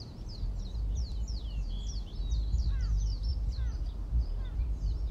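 Many small birds chirping at once: quick, high chirps that sweep downward, with a few lower falling whistles about three seconds in. Under them runs a constant low rumble of wind on the microphone, the loudest sound.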